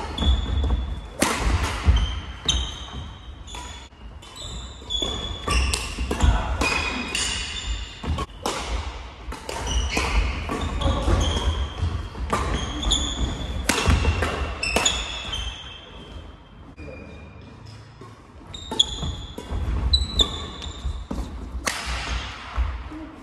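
Badminton doubles rally: sharp racket strikes on the shuttlecock, shoes squeaking on a wooden sports-hall floor, and thudding footsteps and landings, ringing in a large hall. Play eases off briefly past the middle, then picks up again.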